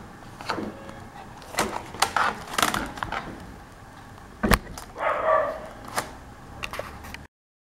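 Light clicks and handling noise of a laptop's plastic keyboard and case being worked loose by hand, with one sharp click about four and a half seconds in and a brief squeak just after. The sound cuts out abruptly near the end.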